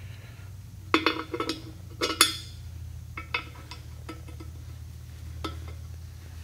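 Steel bolt adapters clinking against the aluminium drill fixture plate as they are slid into its holes by hand: two sharper, ringing clinks about one and two seconds in, then several lighter clicks.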